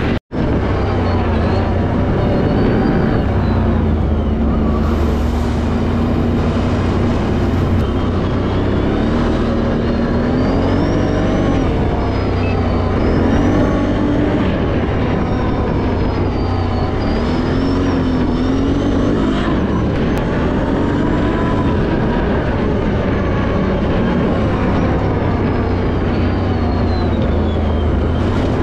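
A vehicle engine running under way, its pitch rising and falling again and again as it speeds up and eases off, over a steady low rumble, with a faint high whine gliding along with it. The sound drops out briefly right at the start.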